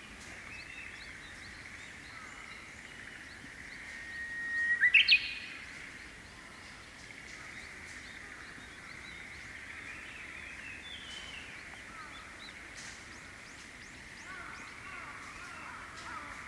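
Japanese bush warbler singing one "hoo-hokekyo" song about four seconds in: a long steady whistle, then a quick rising flourish, the loudest sound here. Faint chirps from other small birds are heard around it.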